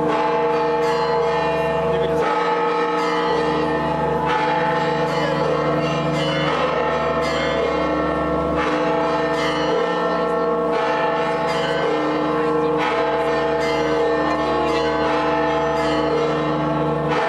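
Church bells pealing, with frequent strikes ringing into one another in a continuous clangour. A crowd's voices murmur underneath.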